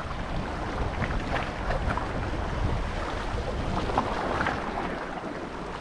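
Wind buffeting the microphone over the wash of sea waves: a steady noisy rush, with a few faint ticks here and there.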